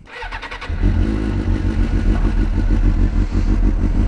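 Motorcycle engine sound: a clattering start, then about a second in the engine comes in loud and runs on with a steady low throb.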